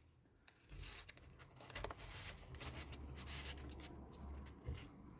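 Paper tags being slid into a paper pocket in a handmade junk journal and the pages handled: faint rustling and scraping of paper and card with small ticks, starting under a second in.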